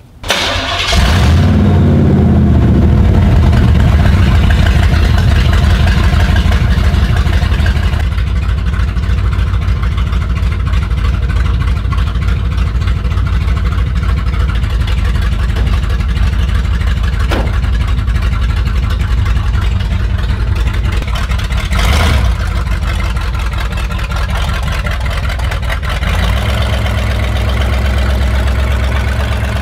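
Chevrolet K5 Blazer engine starting at once and settling into a steady, loud idle, run so the transmission fluid can be checked. There is a short sharp click about 22 seconds in, and near the end the idle takes on a deeper, heavier tone.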